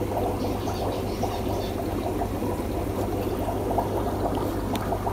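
Air bubbling up through an aquarium sponge filter: a steady gurgle of many small bubbles, with a low steady hum beneath.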